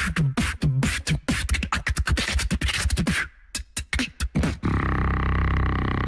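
Human beatboxing into a microphone: a fast run of sharp clicks and percussive hits, then a few scattered hits, then a held buzzing bass sound through the last second or so.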